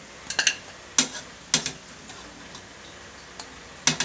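Metal kitchen tongs and boiled quail eggs clicking against a ceramic bowl as the eggs are lifted from the pot and set down: a quick cluster of clicks near the start, single clicks about one and one and a half seconds in, and another pair near the end.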